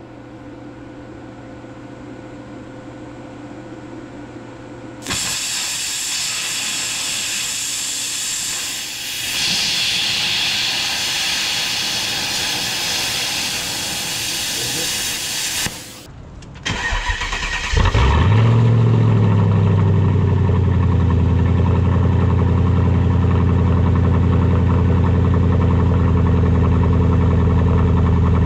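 A low electrical hum, then about five seconds in a plasma cutter strikes its arc into copper with a loud, steady hiss that stops abruptly about eleven seconds later. A couple of seconds after that, an electric air compressor starts, spins up and runs steadily.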